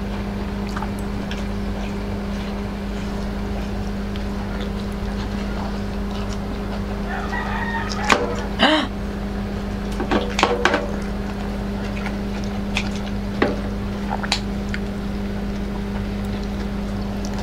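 Kitchen scissors snipping and a metal spoon clinking against the pan while boiled pork leg is cut apart, the clicks coming in short clusters, over a steady low hum. A rooster crows in the background about seven seconds in.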